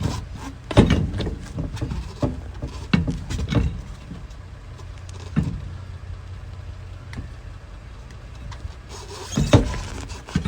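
A vehicle engine idling steadily, with several sharp clunks and knocks as a heavy van wheel is manhandled and lined up onto the hub, the loudest near the end.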